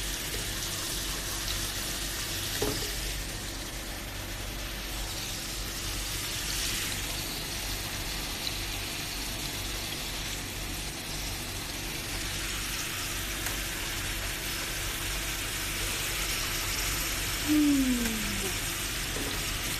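Beef-wrapped enoki mushroom rolls frying in a pan, with a steady sizzle. A single click comes about three seconds in, and a brief voice sounds near the end.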